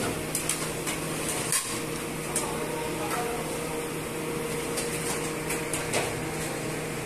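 Scattered sharp clinks of china plates and metal serving ware being handled, over a steady low hum.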